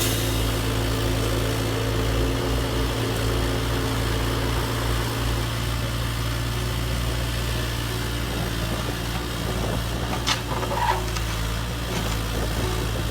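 Steady, even machine hum, like a motor running at idle, with a few short clicks about ten seconds in.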